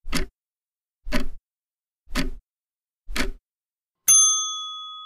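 Ticking-clock countdown sound effect, about one tick a second, four ticks, then a bell dings about four seconds in and rings out, marking that the time to answer is up.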